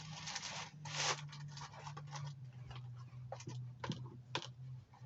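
Faint handling noises: a few light scrapes and clicks over a low steady hum.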